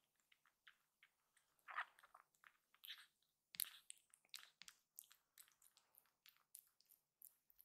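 Tabby kitten suckling milk from a feeding bottle's nipple: a quiet, quick run of wet clicks and smacks, about three or four a second, with a few louder smacks around two and three and a half seconds in.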